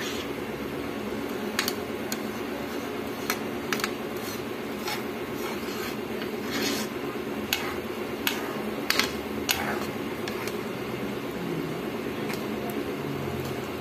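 Metal spoon scraping and clicking against a nonstick frying pan as a thick coconut-and-sugar candy mixture is stirred, with about ten short scrapes and knocks at irregular intervals. A steady low hum runs underneath.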